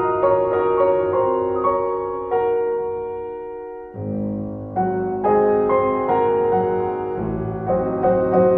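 Slow, gentle piano music: single notes and chords struck and left to ring away, with lower bass notes coming in about four seconds in.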